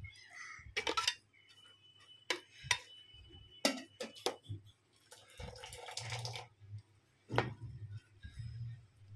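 A perforated metal strainer spoon scooping drained, part-boiled basmati rice and knocking against the pot. There are several irregular sharp clinks, one with a brief metallic ring, and a soft rustle of wet rice sliding off the spoon, with some dripping water.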